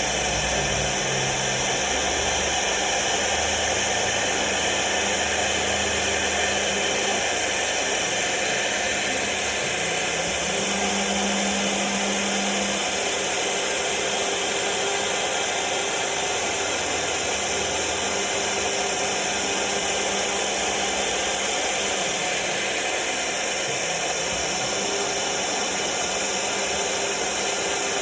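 MecanoCNC M2 CNC router spindle running steadily with a solid carbide bit cutting 4 mm aluminium composite panel, giving a constant hiss. Low hums from the axis motors switch on and off and change pitch as the head moves.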